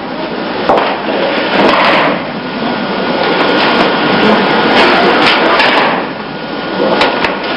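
Thuds and slaps of aikido throws and breakfalls landing on the mat, several times, over a steady noisy hall hiss.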